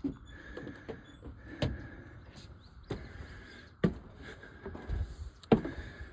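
Footsteps climbing the steps of an observation tower: a run of uneven thumps, about one every half second to a second.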